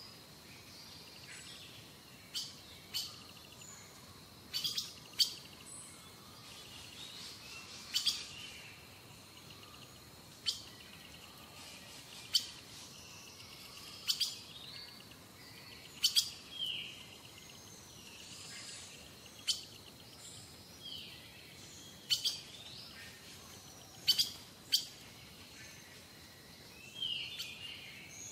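Small birds chirping: short, sharp, high calls every second or two, with a few brief downward-sliding notes between them.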